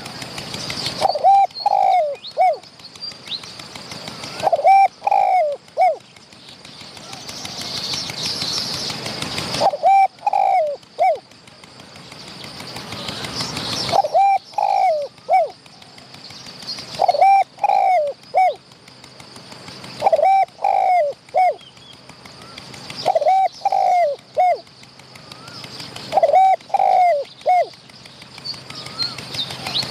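Spotted doves cooing: a phrase of three or four short coo notes repeated about every three to four seconds. A hiss swells between the phrases.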